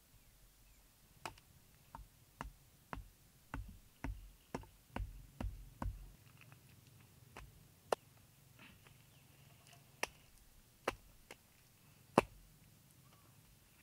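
A run of sharp knocks with dull thuds beneath them, about two a second for several seconds, then a few scattered sharper clicks, the last the loudest, like chopping or striking by hand.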